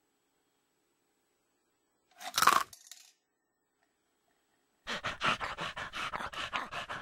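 A cast-iron bulldog mechanical bank working: a single sharp metallic clank about two seconds in as the dog's jaw snaps and takes the coin. From about five seconds in, a dog pants quickly and evenly, about six breaths a second.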